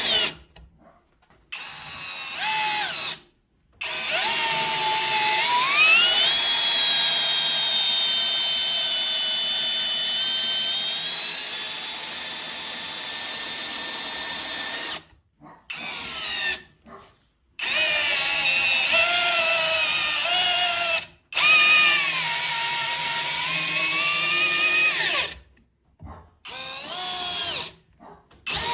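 Parkside Performance PBSPA 12 E4 12 V cordless drill-driver running in repeated bursts, stopping briefly several times. Its motor whine rises in pitch as it speeds up, holds steady, and wavers up and down in the later runs.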